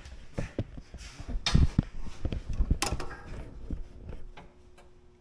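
A run of knocks and clatters of hard objects being handled and set down, loudest about a second and a half and three seconds in, thinning out near the end.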